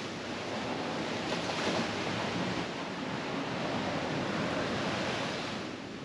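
Surf from small waves washing up a sandy beach, a steady wash that swells and eases, falling off slightly near the end.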